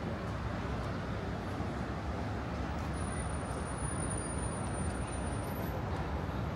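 Steady outdoor city ambience dominated by road traffic noise, with a faint high-pitched whine for a few seconds in the middle.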